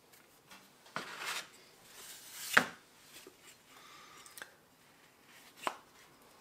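Close handling sounds of a silicone mold half and a thin wooden board being fitted together. There is a knock with a short rustle about a second in, a sharper, louder knock about midway, and another knock near the end.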